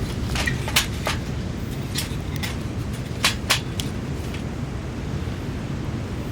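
Steady low wind rumble on the microphone, with about nine sharp clicks and taps in the first four seconds or so, like gear being handled.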